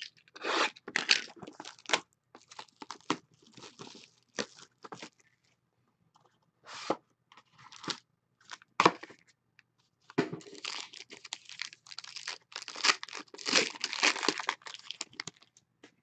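Cardboard trading-card box being torn open and the cards pulled out and handled: bursts of tearing, crinkling and scraping, sparse around the middle with a few sharp clicks, and a dense run in the last few seconds.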